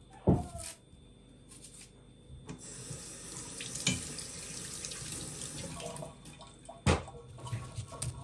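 Kitchen mixer tap running into a stainless steel sink, with hands rinsing under the stream for about four seconds. There is a knock shortly before the water starts and another just as it stops.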